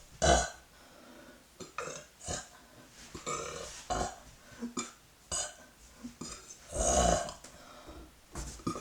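A young woman burping over and over: about ten belches of varying length, short ones mixed with longer, drawn-out ones. The loudest comes about a third of a second in, and a long, loud one comes about seven seconds in.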